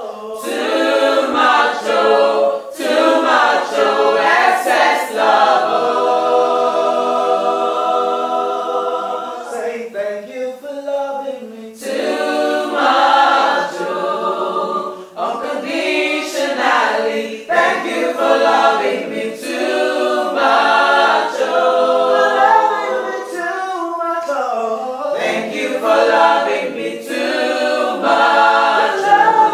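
A small group of mixed voices, women and a man, singing a worship song a cappella in harmony, with a long held chord about six seconds in.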